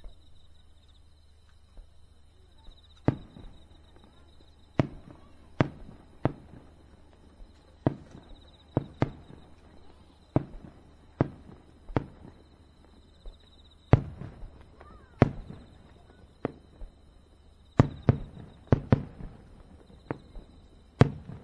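Aerial firework shells bursting in a display: about twenty sharp booms, each with an echoing tail. They come irregularly from about three seconds in and follow more closely near the end.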